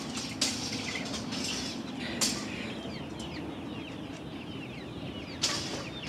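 Chicks peeping: many short, high, falling chirps. A wire-mesh cage gate rattles three times, the last clatter near the end.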